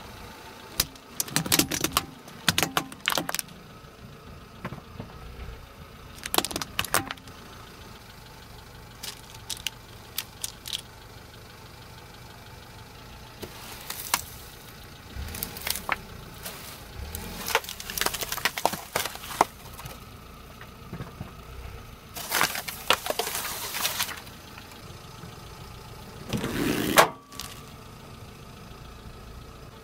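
Car tyre rolling slowly over and crushing objects: plastic clothes pegs cracking and snapping, then a polystyrene foam block crunching, in short clusters of sharp cracks with quieter stretches between. A car engine idles low underneath, and the loudest sound is one sharp burst near the end.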